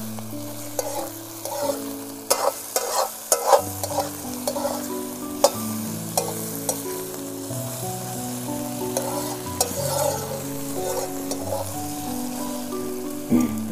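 A steel spatula stirs and scrapes semi-dry pork frying with chili and ginger-garlic paste in a metal wok. The oil sizzles steadily, and sharp clinks of the spatula on the pan cluster about two to four seconds in. Soft background music with held notes plays underneath.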